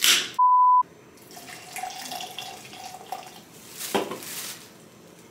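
A can of Sprite cracked open with a sharp hiss, cut off by a half-second beep tone. Then the soda is poured into a cup, a steady splashing fizz for about two seconds.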